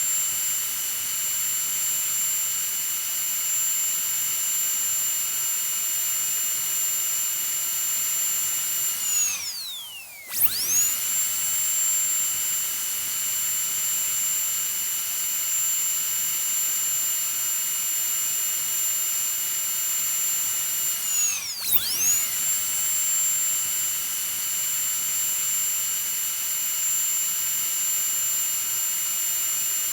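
Dental drill whining steadily at a high pitch. About ten seconds in it spins down and stops, then starts up again with a quick rise in pitch; around twenty-one seconds in it briefly winds down and back up again.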